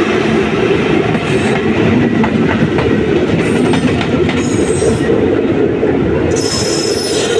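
Passenger train passing close by, with a steady rumble and clatter of coach wheels over the rails. Near the end, as the diesel locomotive at the tail goes by, a brief high squeal of the wheels joins in.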